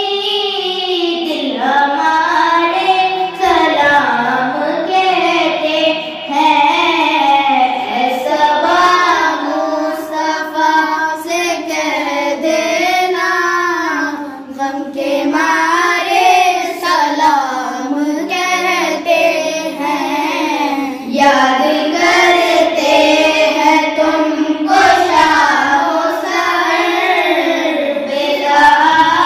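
A boy singing an Urdu devotional salam in long, gliding melodic phrases, with short pauses for breath and no instruments.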